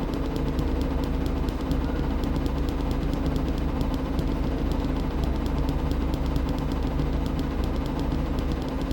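A steady machine hum with a fast, even ticking, about six ticks a second.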